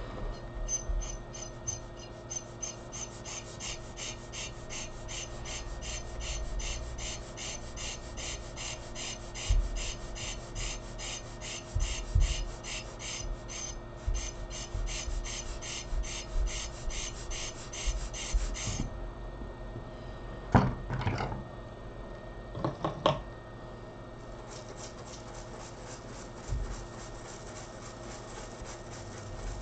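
A stiff brush scrubbing a small BGA chip in cleaning liquid, in quick even strokes at about four a second, with a pause and two sharper knocks part-way through, over a steady hum.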